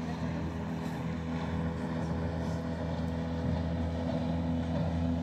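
Small motorboat's engine running at steady speed on the river, a low drone at an even pitch that grows slightly louder.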